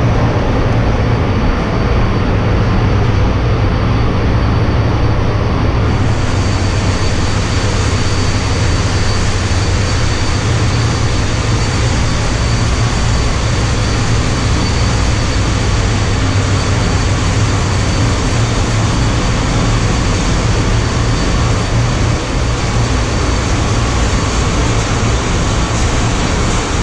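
Ship's engine-room machinery running: a loud, steady mechanical din with a strong low drone. About six seconds in it turns brighter and hissier, and a faint steady high whine joins.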